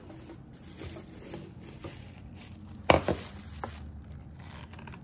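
Handling noise from a stainless-steel nut milk machine as its lid, with the filter cup attached, is worked loose and lifted out of the steel jug: light clicks and rustling, with one sharp metallic knock about three seconds in.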